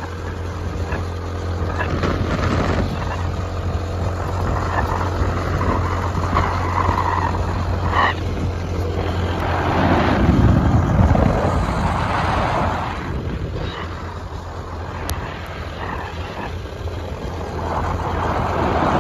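Wind and road noise from a moving vehicle, with gusts that swell and fade. A steady low hum drops away about halfway through.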